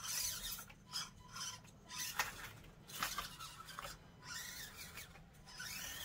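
Axial SCX24 1/24-scale micro RC crawler working its way over the course: irregular bursts of scraping and rasping as its tires and chassis grind over the terrain. A faint steady high whine runs underneath.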